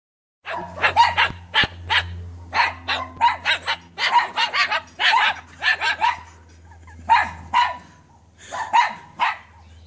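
White cockatoo mimicking a dog, giving rapid runs of sharp barks with short pauses between them.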